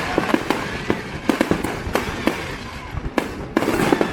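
Fireworks display: a rapid, unbroken run of bangs and crackling shell bursts, with heavier clusters of bursts about a second in and again near the end.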